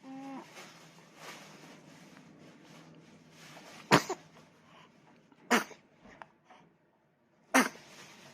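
A 47-day-old baby sneezing three times, one every second and a half to two seconds, each sneeze short and sharp. Just before them the baby makes a brief small vocal sound right at the start.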